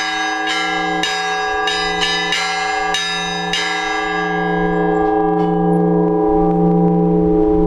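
Orthodox church bells being rung: the small bells are struck in quick succession for about three and a half seconds, then the strikes stop and the bells ring on. This leaves the deep hum of the large bell, which grows louder with a slow waver.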